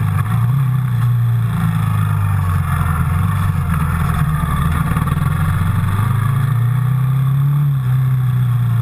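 Yamaha Raptor quad bike's single-cylinder four-stroke engine running steadily under way. Its revs rise a little about two-thirds of the way through, then ease back.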